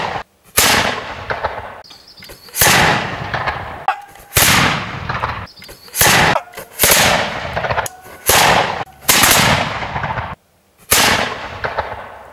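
A string of about nine shots from Tudor black-powder muzzle-loading guns, one every one to two seconds. Each is a sharp report followed by a decaying echo.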